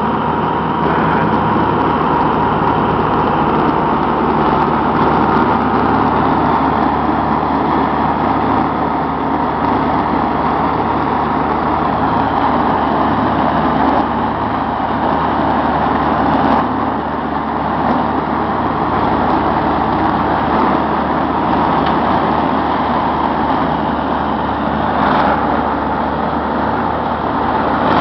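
International Harvester 584 tractor engine running steadily under load while driving a Woods RM90 rear-mounted finishing mower through tall grass, the mower's spinning blades and gearbox adding a steady whine over the engine.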